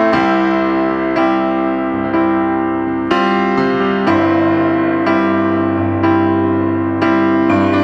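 Background piano music: a slow keyboard piece with chords struck about once a second, each ringing on.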